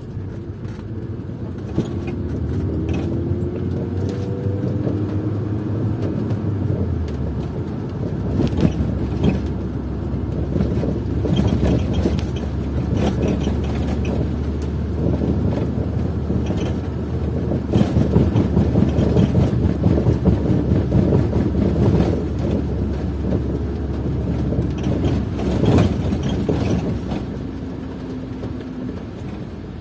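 A car driving on a wet road, heard from inside the cabin: steady engine and tyre noise with scattered sharp taps. The engine note rises in the first few seconds as the car picks up speed.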